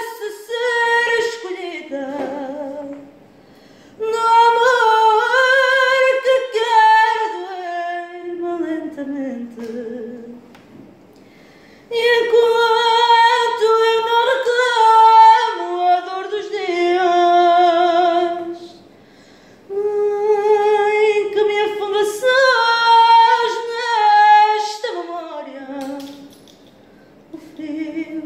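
A woman singing a fado unaccompanied, in long held phrases with a wavering vibrato, broken by short pauses for breath.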